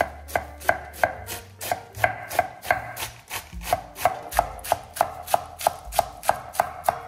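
Chef's knife shredding iceberg lettuce on a wooden cutting board: a steady, even rhythm of about three knife strikes a second.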